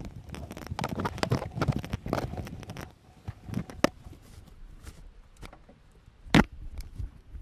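Rustling and clicking of a mooring rope being handled at a barge's rail, busy for the first three seconds, then sparser. One sharp knock about six seconds in is the loudest sound.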